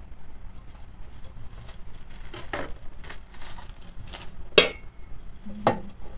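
Plastic bag rustling as it is handled, then a sharp clank of a stainless steel bowl past the middle, ringing briefly, and a lighter knock near the end.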